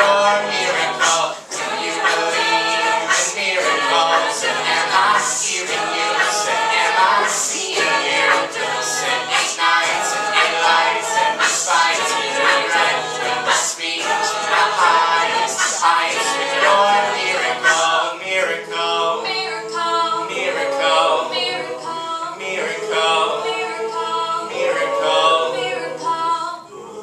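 Mixed-voice a cappella group singing in harmony, backed by vocal percussion with regular ticks. About two-thirds of the way in the beat drops out and the voices carry on more softly.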